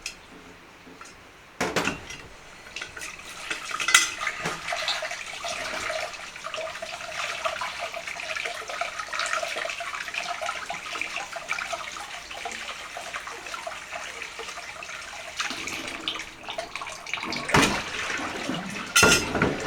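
Water pouring or running steadily into a pot, with a few sharp clanks of a metal pot and utensils at the start and near the end.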